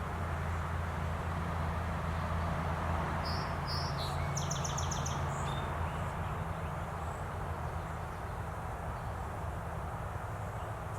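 A steady low hum and an even rushing background noise, with a short bird call about three to five seconds in: a few high chirps and then a quick trill.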